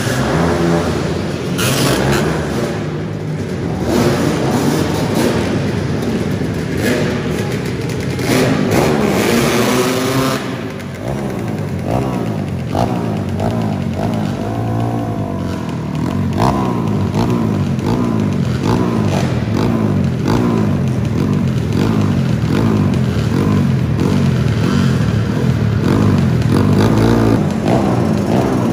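Several racing three-wheelers' engines, among them a Honda ATC250R two-stroke, idling and being revved over and over on the start line. The pitch keeps rising and falling as the riders blip their throttles.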